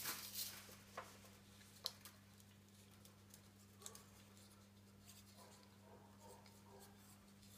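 Faint clicks and light scratching of wire being pressed by hand into the grooves of a wooden wireworking form, with a few sharper clicks in the first two seconds and one about four seconds in, over a steady low hum.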